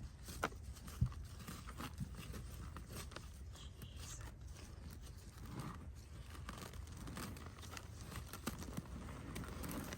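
Hands digging through loose potting soil and pulling at sweet potato roots: soft, irregular rustling and scraping, with a couple of light knocks in the first second or so.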